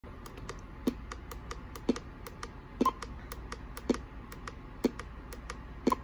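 Regular soft ticking: a stronger tick about once a second, with lighter ticks between, over a faint hiss.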